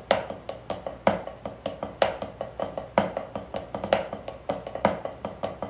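Drumsticks tapping a rubber RealFeel practice pad: a steady stream of even strokes, about five a second, with a louder accented stroke about once a second.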